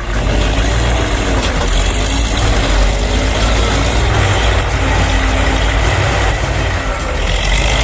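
Heavy engines running steadily under load, with a deep low rumble, as a tracked tractor tows a stuck log truck through deep snow.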